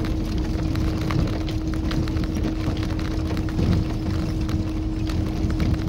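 Tofaş Kartal car driving over a rough gravel track, heard from inside the cabin: a steady engine and road rumble with a steady droning tone, and many small knocks and rattles from the body and stones.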